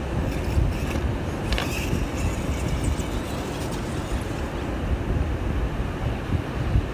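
Wind buffeting the microphone over the steady wash of ocean surf, with a few short clicks about one and a half seconds in.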